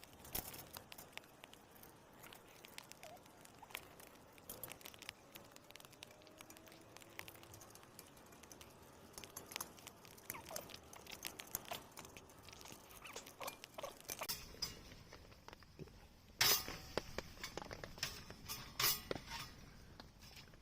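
Light rain dripping onto a camp tarp: irregular, scattered ticks and pats, with a few louder knocks about three-quarters of the way through.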